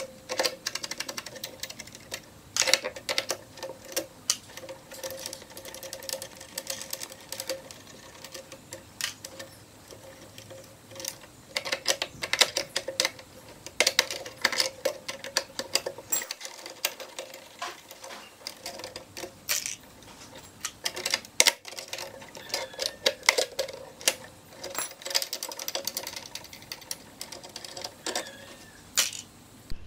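Irregular metallic clicks, ticks and taps of a wrench and fingers working the nuts, washers and ring lugs on the speaker-terminal posts of a Crown 2400 amplifier's steel chassis. A faint steady tone sits underneath.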